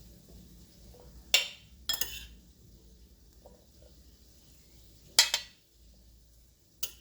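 Serving utensil clinking against dishes a few times while salad is spooned onto a plate: three short sharp clinks, the last about five seconds in.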